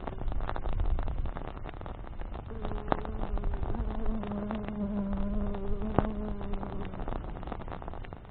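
A flying insect buzzing with a steady hum that starts about two and a half seconds in and fades near the end. Behind it a wood fire crackles, with a few sharp pops.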